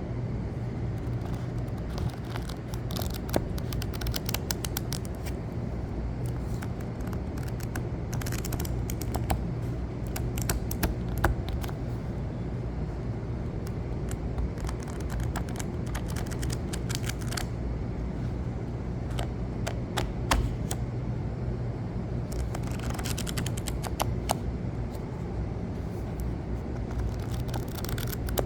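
Paper book pages being flicked through fast, in runs of many quick crisp rustles and snaps with short pauses between runs. A steady low hum sits underneath throughout.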